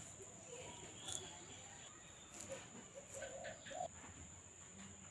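Quiet background ambience: a faint steady high-pitched whine, with a few faint soft ticks and some weak, indistinct sounds about three seconds in.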